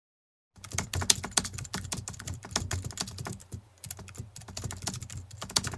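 Rapid keyboard typing clicks, a typing sound effect, starting about half a second in, with a short pause about two-thirds of the way through.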